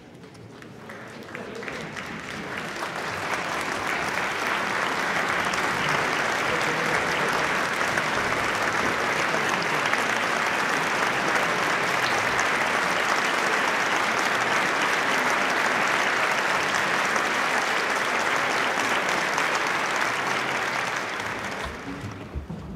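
Concert-hall audience applauding: the clapping builds over the first few seconds, holds steady, then dies away near the end.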